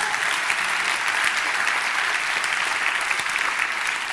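Large audience applauding steadily, many hands clapping together, easing slightly near the end.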